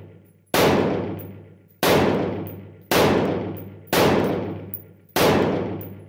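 AR-15 in 5.56 with a VG6 Epsilon muzzle brake firing five shots, about one a second, each shot dying away in a long echo.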